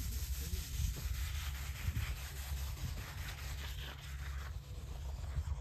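Water jetting out of the nozzles of a horizontal directional drill's reamer as the pullback starts, a steady spraying hiss with a low rumble underneath.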